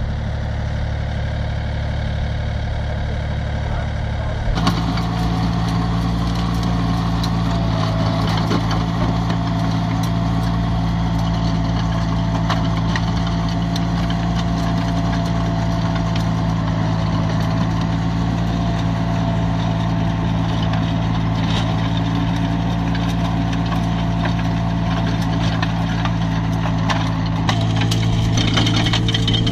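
MultiOne mini loader's engine running steadily, with an abrupt change in the sound about four and a half seconds in. After it the engine keeps running steadily under a scatter of small clicks and rattles from the rotary soil harrow working the ground.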